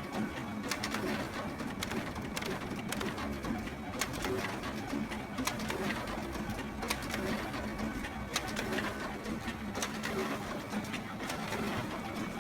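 Photocopier running through a copy job: a steady motor hum with a click and whir repeating about every one and a half seconds as each sheet goes through.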